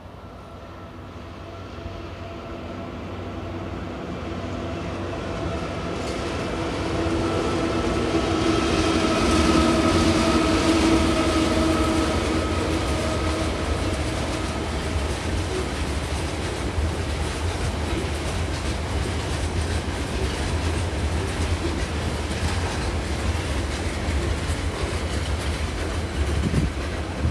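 TasRail diesel locomotives TR09 and TR02 hauling a coal train approach and pass, the engine sound growing louder to a peak about ten seconds in. After that, the train of coal hopper wagons rolls steadily by, their wheels running on the rails.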